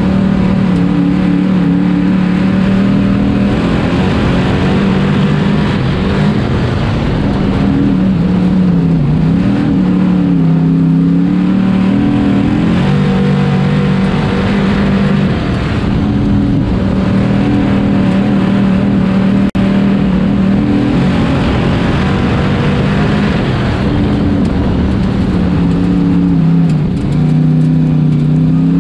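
Dirt-track Sportsman Modified race car's V8 engine running hard at lap speed, heard from inside the cockpit. Its pitch falls and climbs again several times as the throttle is lifted for the turns and reapplied down the straights.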